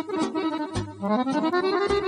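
Accordion-led Balkan folk music, with low drum beats about once a second. About halfway through, a held note slides up in pitch and stays there.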